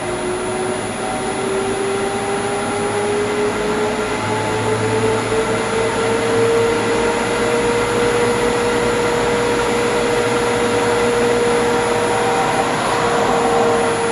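Inverter-driven vertical multistage water pump running, its motor whine rising in pitch over the first several seconds as the inverter speeds it up, then holding steady. The pump has just been bled of air and is building up to its normal set pressure on freshly replaced bearings.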